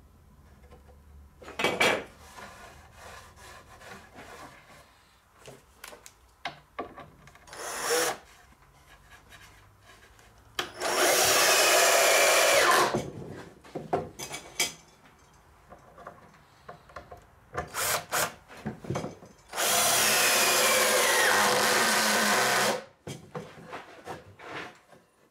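Cordless drill-driver driving wood screws into pine boards: two long runs of a few seconds each, about 11 s and 20 s in, the motor's pitch falling as each screw draws in, with shorter bursts and knocks of the boards between.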